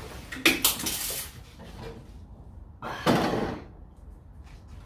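Cardboard box rustling and scraping as a black metal electric tandoor is lifted out of it, with two loud bumps and scrapes, about half a second and three seconds in, as the unit knocks against the box and is set down on the table.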